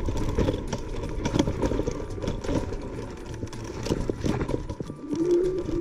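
Dual-motor electric scooter ridden hard over rough, bumpy off-road ground: a low rumble with constant rattling knocks from the scooter jolting over the terrain, and a wavering motor whine that swells up about five seconds in.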